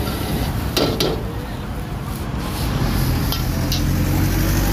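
Metal ladle and spatula scraping and clanking against a steel wok as fried rice is stir-fried: a sharp clatter about a second in, then a couple of lighter clinks. A steady rushing noise underlies it, and a low engine hum builds near the end.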